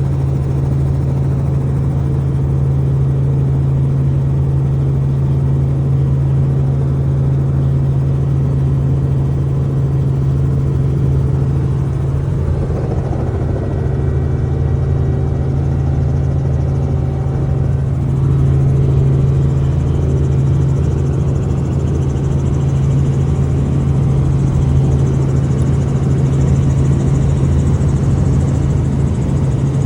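Robinson piston helicopter running steadily with a low, even engine and rotor drone, getting slightly louder about two-thirds of the way through.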